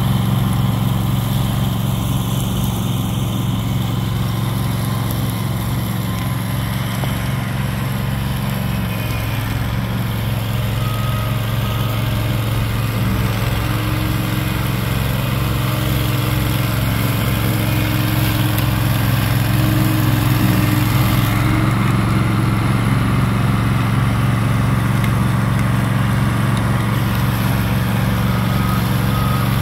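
Engine of a remote-controlled Spyder slope mulcher running steadily at working speed as the machine mulches tall grass on an embankment.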